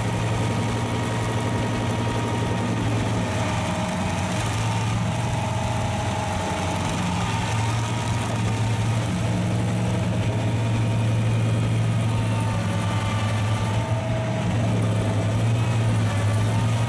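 The engine of a stump-removal machine running steadily: a constant low hum, with a few higher tones that come and go.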